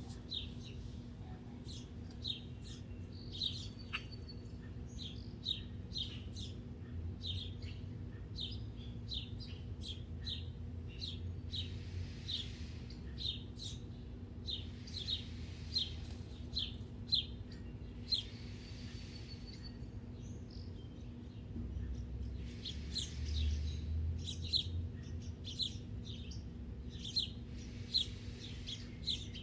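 Small birds chirping: short, sharp chirps repeated about twice a second, with a faint low rumble that comes and goes in the background.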